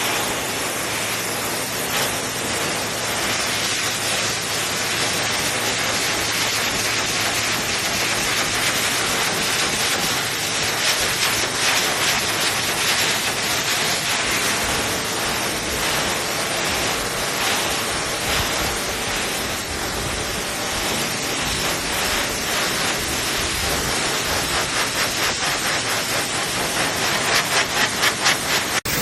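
EGFKI 5.2HP high-velocity pet dryer blowing: a loud, steady rush of air with a low hum beneath it. Near the end the rush pulses rapidly.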